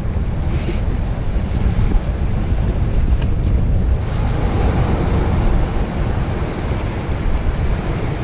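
Ocean surf washing over a rocky reef, with wind rumbling on the microphone.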